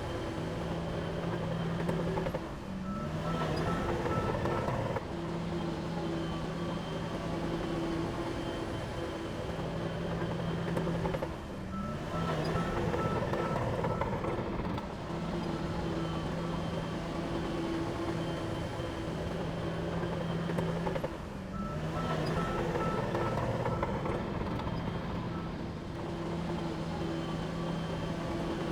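Heavy machinery diesel engine running steadily, with a short dip and then a rising-and-falling surge about every ten seconds, and faint intermittent beeping.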